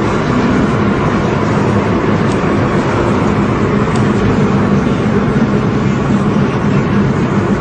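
Steady engine and road noise from a moving vehicle on the road, a constant low hum with no change in pace.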